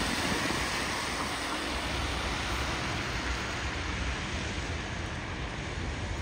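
Steady city street background noise, mostly road traffic: a continuous hum and hiss with no single event standing out.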